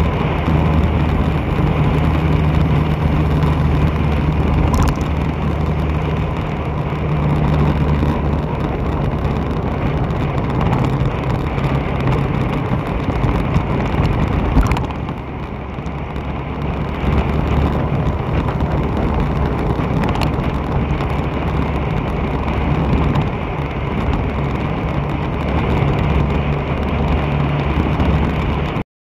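Motorbike ride on a wet street: steady engine hum with road and wind noise, the sound cutting out for a moment near the end.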